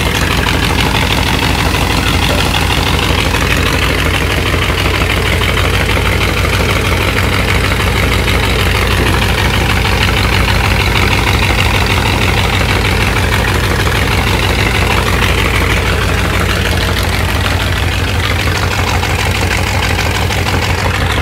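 Heavy diesel engine on a sand-loading bulkhead vessel running steadily and loudly, powering the dredge pump that pours sand slurry into the hold.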